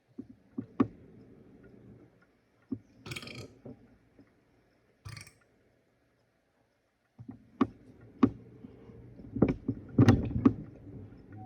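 A person burping from a stomach full of gas after soda and chips: several low belches with sharp clicks, two short hissing puffs in the middle, and a longer, louder run of belching in the last few seconds.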